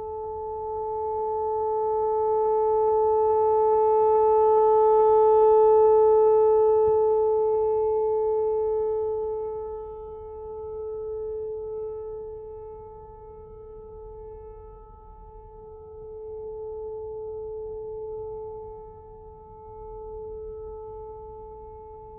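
Whelen WPS-4004 electronic outdoor warning siren sounding a steady, unwavering tone during its monthly test. The pitch holds while the loudness swells and fades every few seconds, loudest about six seconds in.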